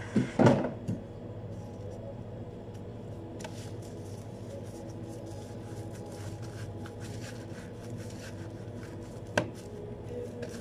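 A few sharp knocks about half a second in, then faint clicking and rubbing of a bamboo sushi mat as a maki roll is rolled by hand, over a steady low hum; one more sharp knock near the end.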